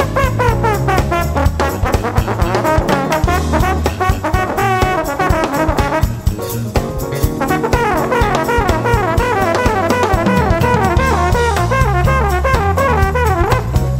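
Live jazz-funk band: a trombone solo of fast, wavering melodic runs over a drum kit, bass and Fender Rhodes.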